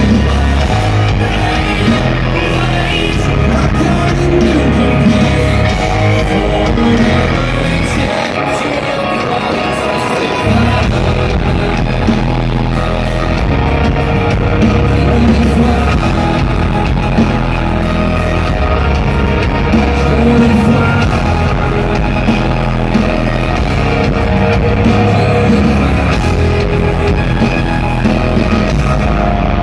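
Live rock band playing loud, with electric guitars, drums and a singer. The low end drops out for a couple of seconds about eight seconds in, then the full band comes back.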